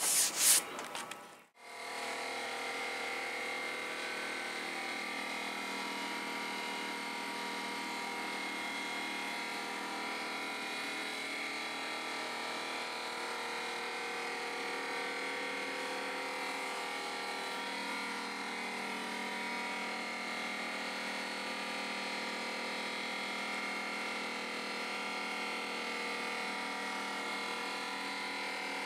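Electric orbital sander running steadily during a final light sanding of a wooden tabletop. It takes over after a few brief knocks and an abrupt cut about a second and a half in.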